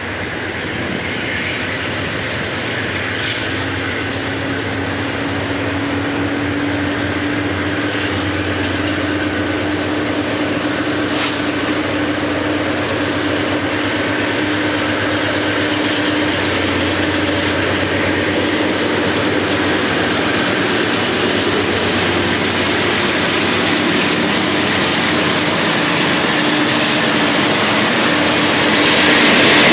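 Diesel freight locomotives approaching under power, a steady rumble with a low engine drone that grows louder as they near, jumping in loudness near the end as they pass close by.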